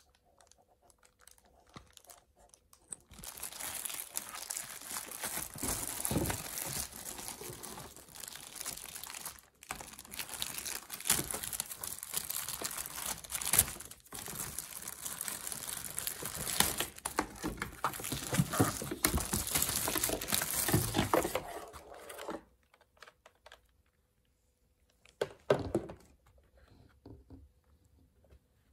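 Clear plastic bag crinkling and rustling as a computer keyboard is worked out of it by hand, in long dense stretches with brief pauses. It stops about three-quarters through, leaving only a few short handling sounds.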